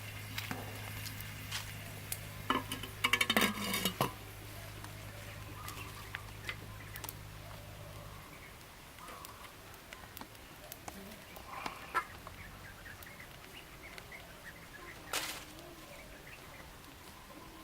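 Chickens clucking in the background among scattered clicks and knocks, loudest about three to four seconds in. A steady low hum stops about eight seconds in.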